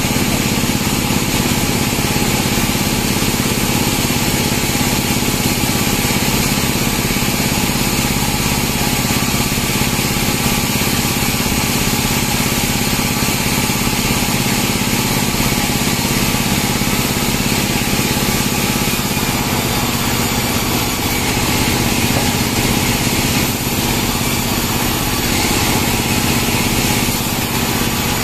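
Band sawmill running steadily, a constant engine-like mechanical drone.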